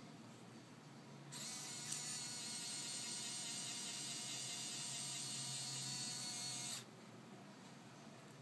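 Small geared electric motor of a Tamjets E-gear RC electric retract running under load: a steady high whine that starts about a second in, runs for about five and a half seconds and cuts off suddenly.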